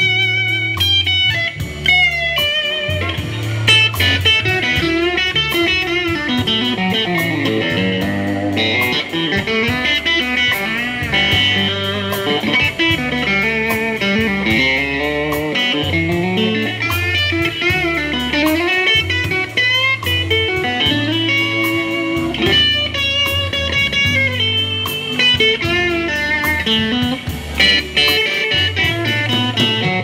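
Telecaster electric guitar played live through an amp, single-note lead lines with bent and wavering notes, over a band's drums and steady low bass notes.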